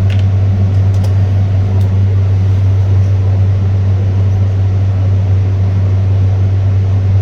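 Steady, loud low hum of a fan or motor running in the room, with a few light clicks in the first two seconds.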